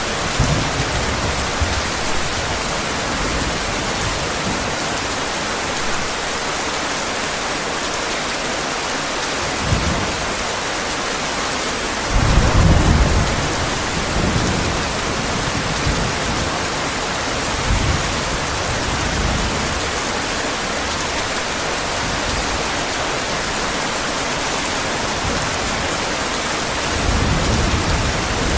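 Steady heavy rain with low rumbles of thunder rolling in several times; the loudest rumble comes a little before halfway and lasts about a second and a half.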